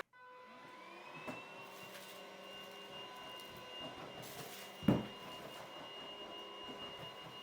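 Cordless stick vacuum motor running steadily, its high whine rising in pitch over the first two seconds and then holding steady. A single thump about five seconds in.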